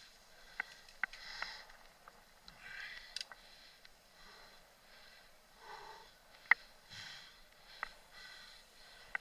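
Mountain biker's rhythmic hard breathing close to the microphone, about one breath every second and a half, mixed with sharp clicks and rattles of the bike over bumps; the loudest click comes about six and a half seconds in.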